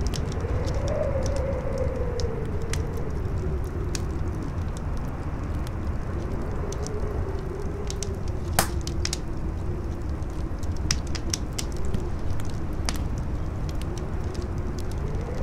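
Campfire crackling with scattered sharp pops, the loudest about halfway through, over a steady rush of strong wind whose howl rises and falls in pitch.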